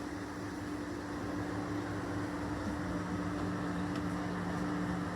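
Steady electric fan hum: an even whirring with a low, steady drone underneath.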